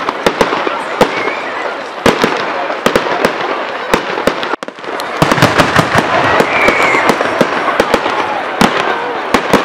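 Fireworks display: rapid sharp cracks and pops from bursting shells over a continuous hiss, the sound breaking off for an instant about halfway through.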